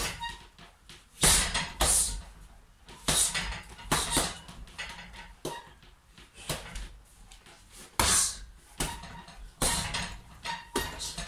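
Punches landing on a hanging heavy punching bag, about a dozen hits at irregular intervals in short bursts.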